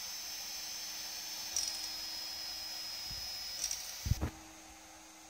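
3D printer's stepper motors whining at a steady high pitch while the print head traces long straight lines, shifting pitch with a faint click at each change of direction about every two seconds. Near the end a low thump comes and the whine stops.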